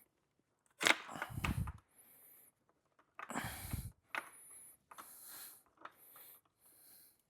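Hands working on the motorcycle with tools and parts: two sharp clicks, each followed by a second of clattering and scraping, then several quieter rustles and scrapes.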